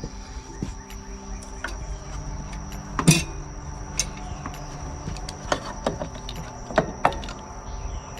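Scattered sharp clicks and knocks, the loudest about three seconds in and a pair near the end, over a steady high-pitched drone.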